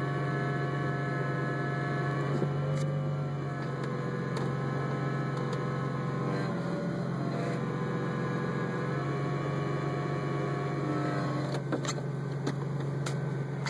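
2003 Roush Stage 1 Mustang running steadily, a low hum with whining tones above it that shift slightly in pitch, and a few sharp clicks near the end.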